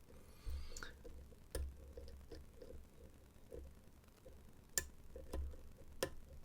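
Faint metallic ticks and scraping of a flag pick working the dimple pins of an AZBE HSK high-security lock under tension. There is a brief scrape about half a second in, and sharper clicks about one and a half, five and six seconds in.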